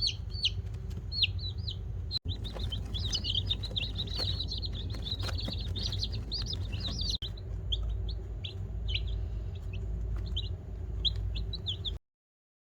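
Chickens chirping with many short, high calls, busiest in the middle, over a steady low rumble.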